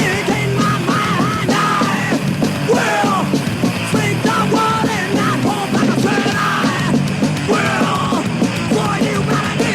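Thrash metal band with a punk attitude playing at full tilt from a 1993 tape recording: guitar, bass and drums under shouted vocals.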